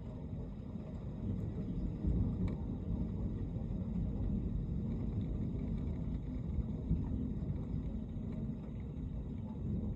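Gusty storm wind buffeting the microphone: a low, uneven rumble that swells about two seconds in.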